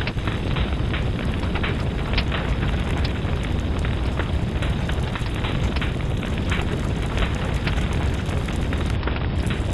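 Fireplace fire crackling: a steady low rumble of flames with frequent small, irregular pops and snaps.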